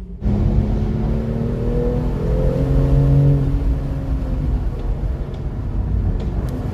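Jaguar F-Type V8 engine accelerating, its note rising for a couple of seconds and then easing off, over a steady low rumble.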